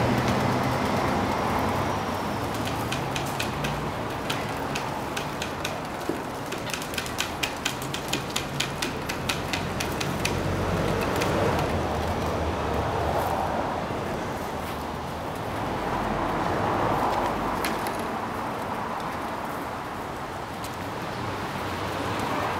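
City street ambience: the rumble of passing traffic swells and fades. In the middle, a quick, even run of clicks lasts about three seconds, about four a second.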